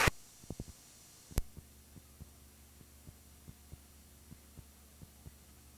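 Quiet gap between recordings on a videotape: a faint low hum with scattered soft clicks, about two a second, and one sharper click about a second and a half in.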